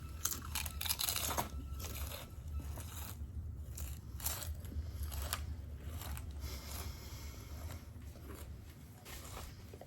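Crunching and chewing of a crispy fried squid-egg snack, with irregular crisp bites over the first several seconds, then quieter chewing.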